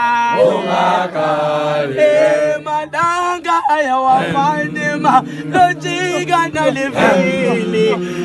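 Group of men singing a gwijo, an unaccompanied Zulu group chant: low voices hold steady notes under a higher line that rises and falls.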